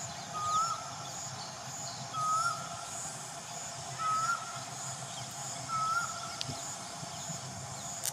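A bird repeating a short, slightly rising call note about every two seconds, over a steady high-pitched buzz in the background.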